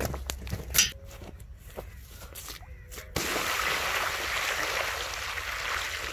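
Footsteps on grass and a sharp knock from the swinging metal bucket, then about three seconds in, water poured from a steel bucket splashes steadily onto the soil at the base of a sapling.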